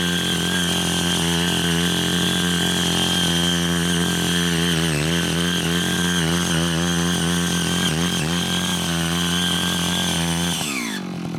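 Small 5 HP engine of a CY80 walk-behind cultivator running at high revs while its tilling blade churns through weeds and soil, the note wavering with the load. Near the end the revs fall off quickly.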